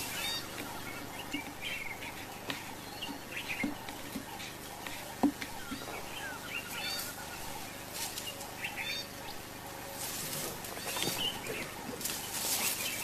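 Birds chirping: short, high calls scattered through, over a steady outdoor hiss, with a few soft knocks and a rustling noise near the end.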